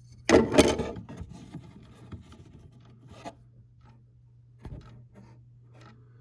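Handling noise: a loud scrape and rub about half a second in, then fainter rustles and a short knock near the end.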